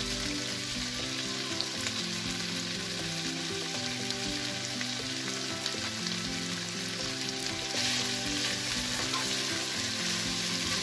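Chicken and vegetables sizzling in a frying pan as shredded cabbage is added and stirred in with a spatula; the sizzle gets louder about eight seconds in.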